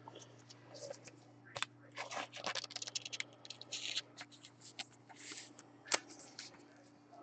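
A glossy trading card being handled: faint, irregular scraping and rustling with small clicks as it is turned and slid against a plastic holder, over a faint steady hum.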